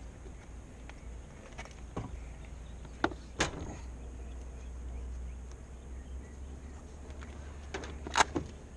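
Several sharp knocks and clicks of gear being handled, the loudest cluster near the end, over a steady deep rumble.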